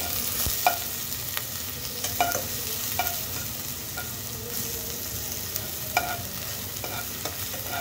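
Ghee tempering sizzling in a pot as green chilli, ginger and coriander paste fries in it, with a metal spoon stirring and clinking sharply against the pan a few times.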